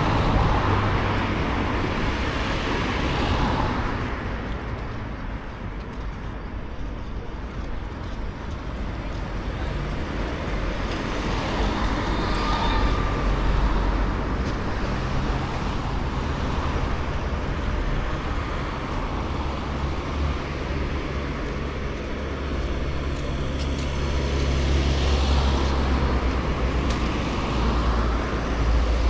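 Road traffic with a steady low rumble of engines. One vehicle passes near the start and another near the end.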